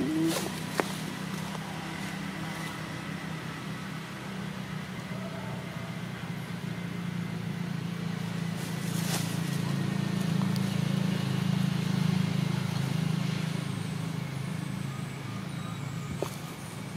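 Low, steady rumble of a motor vehicle's engine. It grows louder through the middle and then fades away, as a vehicle passing nearby would.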